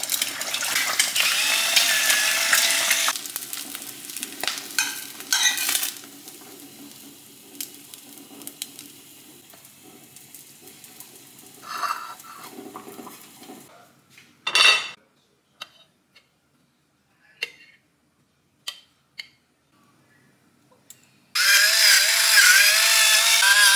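An egg sizzling in a hot frying pan, followed by scattered clinks and knocks of plates and cutlery. Near the end an electric pepper grinder whirs loudly with a wavering motor whine.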